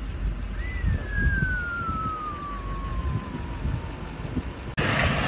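A single clear whistle that rises briefly and then glides slowly down in pitch for about three seconds, over a low wind rumble. Near the end the sound cuts abruptly to a louder, steady rush of wind noise.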